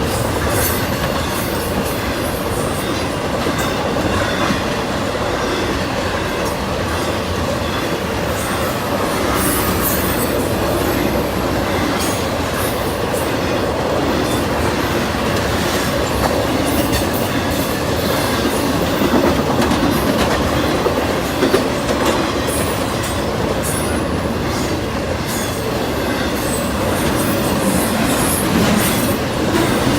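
A CSX freight train's cars rolling past on the rails: a steady, loud rumble of wheels with a clickety-clack from the rail joints, and short high-pitched wheel squeals now and then.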